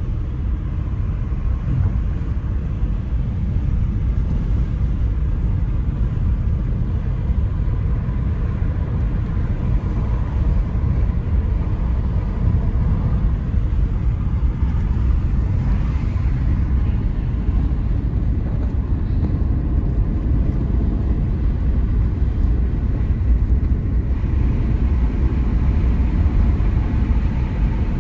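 Steady low rumble of tyres and engine inside the cabin of a moving car.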